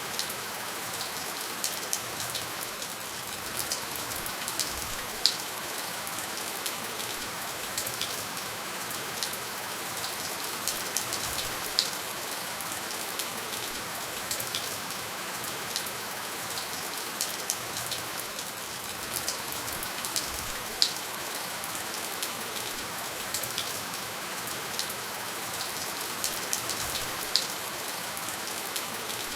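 Steady, gentle rainfall with no thunder: an even hiss of rain, with many sharp individual drop taps scattered through it.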